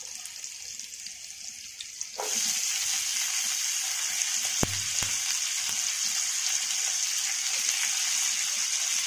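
Hot oil with cumin, green chillies and turmeric sizzling quietly, then about two seconds in a sudden loud, steady sizzle as freshly washed, chopped cluster beans go into the pan. A single knock is heard about halfway.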